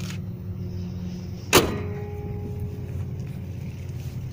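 A car hood slammed shut once: a sharp bang with a short metallic ring dying away, over a steady low hum.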